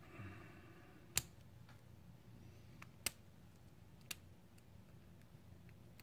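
Faint metallic clicks of a lock pick and tension wrench working inside a brass padlock's keyway: a few sharp single clicks spaced a second or two apart, the loudest about a second in, with softer ticks between.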